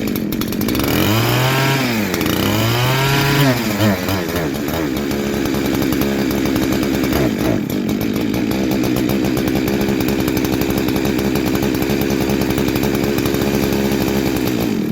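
Husqvarna 372XP-clone two-stroke chainsaw running on a newly fitted cheap carburettor while it is being tuned: revved up and down twice in the first few seconds, then running steadily before cutting out abruptly at the end. The owner judges the carburettor terrible.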